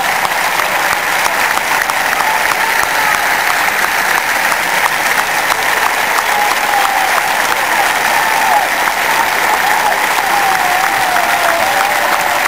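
Large stadium crowd of football supporters applauding steadily, a dense mass of hand claps, with thin wavering whistles rising over it in the later seconds.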